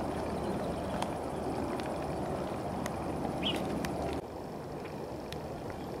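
Wind blowing on the microphone on an open hilltop, a steady low rush with scattered faint clicks and a brief high chirp a little after halfway. The rush drops suddenly to a quieter level about two-thirds of the way through.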